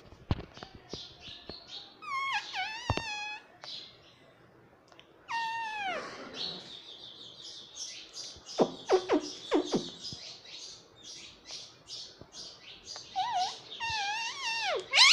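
Indian ringneck parrot calling: pitched, whistle-like calls that slide downward, about two and five seconds in, then a run of short chirps, and wavering calls near the end.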